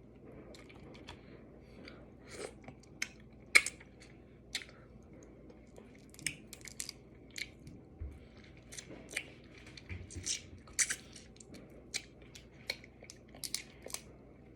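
Close-mouthed chewing, with wet lip smacks and sharp little clicks coming irregularly, a few a second, as a person eats.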